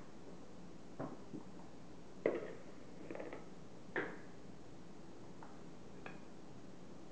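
A spoon scooping whipped cream from a bowl into a glass trifle bowl: several soft knocks and scrapes of the spoon against the bowls. The loudest come a little over two seconds in and at about four seconds in, over a low steady hum.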